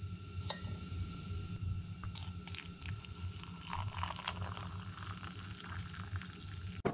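A metal spoon clinks against a ceramic mug as instant coffee granules are tipped in. Then hot water pours from a kettle into the mug, with a rushing, splashing sound from about four seconds in. A steady low hum runs underneath.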